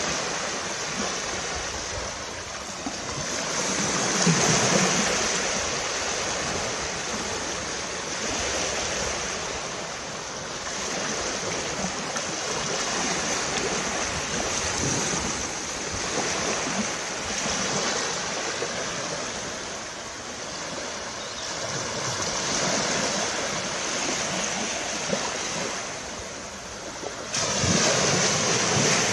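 Ocean surf washing onto a beach, a steady rushing that swells and eases every several seconds, with an abrupt change in the sound near the end.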